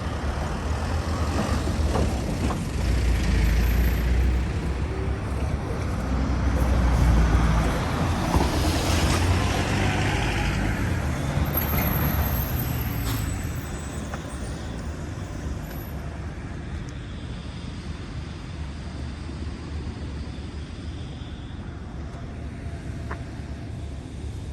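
Road traffic: a heavy motor vehicle passing close by with a low engine rumble, loudest in the first half and fading away after about thirteen seconds.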